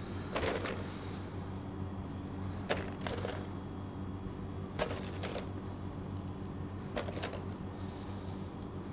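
A steady low hum of kitchen equipment, broken every couple of seconds by short clicks, often in pairs, as frozen raspberries are handled and set on top of a cake.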